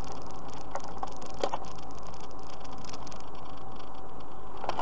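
Steady engine and tyre noise of a car driving along a road, with a few faint clicks about a second in.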